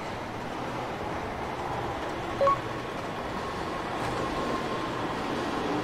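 Tokaido Shinkansen train running with a steady, even noise. A short electronic beep sounds about two and a half seconds in.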